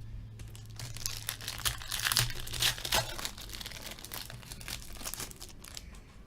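Trading card pack wrapper crinkling and rustling as it is handled and opened: a dense run of fine crackles, busiest about two to three seconds in and thinning out after.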